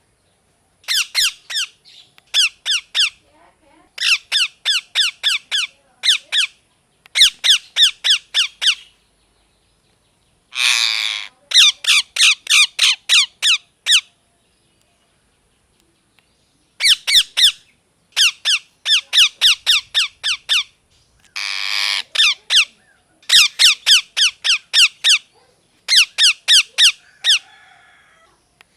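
A rose-ringed (ringneck) parakeet calling in bouts of rapid, shrill repeated squawks, several a second, with short pauses between bouts. Two longer, harsh screeches come about ten seconds in and again about twenty-one seconds in.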